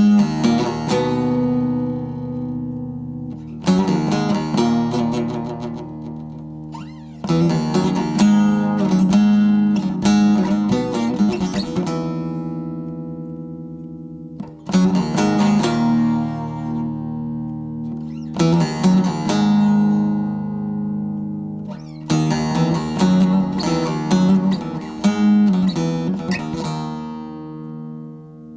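Background music on acoustic guitar: chords strummed or plucked together every few seconds, each left to ring and slowly fade.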